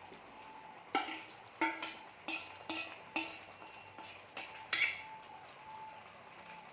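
A metal spoon stirring chicken into masala in a metal cooking pan, clanking sharply against the pan about eight times with a brief metallic ring, over a faint low sizzle.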